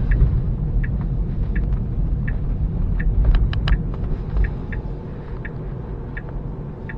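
Low road and tyre rumble inside a Tesla's cabin, easing a little in the second half, with the turn signal ticking evenly about every three-quarters of a second. A quick run of three sharper clicks comes about three and a half seconds in.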